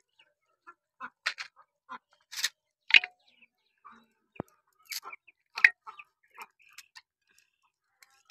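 Raw mutton pieces dropped by hand into a wet clay handi pot: irregular soft wet slaps and knocks, one after another with short gaps.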